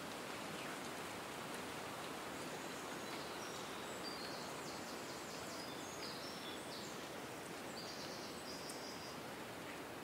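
Forest ambience: a steady wash of wind through the leaves, with small birds chirping faintly and high-pitched from about three seconds in until near the end.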